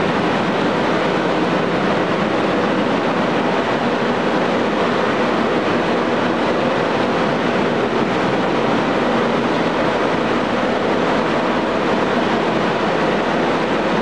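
Carrier 5H-120 twelve-cylinder reciprocating refrigeration compressor and its electric drive motor running steadily: a loud, even machinery noise.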